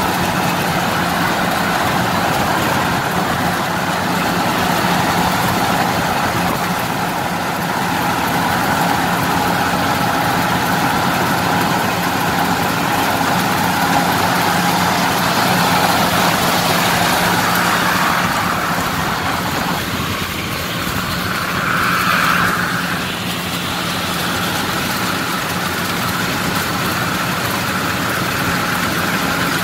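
Yanmar 82 rice combine harvester at work cutting rice, heard from its seat: a loud, steady engine and machinery drone with a constant low hum. The tone shifts briefly about two-thirds of the way through.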